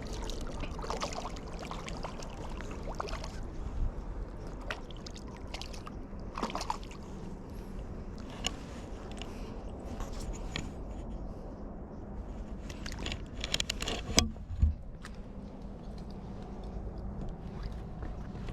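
Water sloshing and splashing against a steady low outdoor rumble, with scattered knocks and handling noises and a louder burst of splashes and knocks about thirteen to fifteen seconds in.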